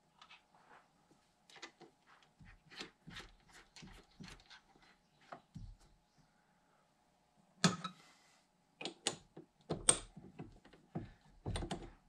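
Light metal clicks and taps of tools and lathe parts being handled, a quick run of them in the first half, then several sharper knocks in the second half, over a faint steady hum.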